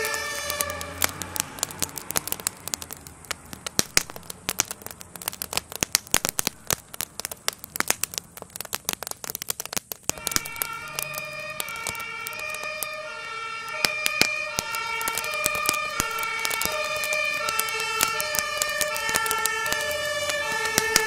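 Burning garden shed crackling and popping in many sharp cracks. Two-tone emergency sirens alternate between two notes at the start, fade out about a second in, and come back about ten seconds in, with several sirens at different pitches overlapping.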